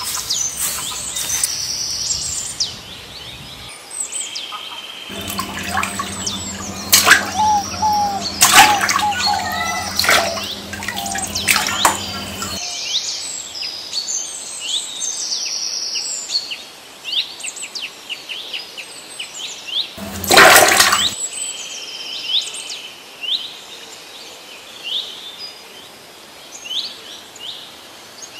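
Birds chirping in many short, quick notes throughout. A low hum runs for several seconds in the first half, and about two-thirds through a loud rush of water-like noise lasts about a second.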